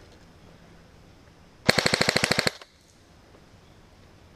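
Airsoft electric rifle firing one full-auto burst of about 18 shots at roughly 20 a second, lasting just under a second, about two seconds in.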